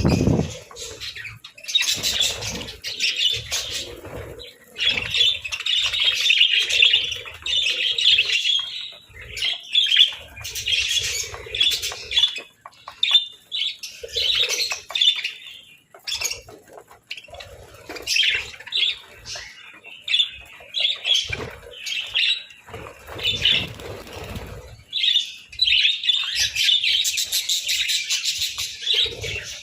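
Several budgerigars chirping and chattering in bursts, with short low knocks scattered between.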